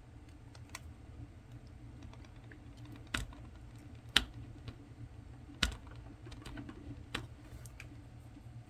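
Scattered light clicks and taps of hand tools and small hard parts being handled during disassembly, with a few sharper knocks about three, four and five and a half seconds in, over a steady low hum.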